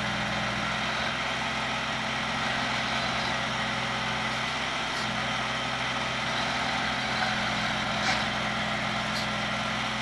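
Engine of an old crawler loader running steadily at low revs, with a few light clicks.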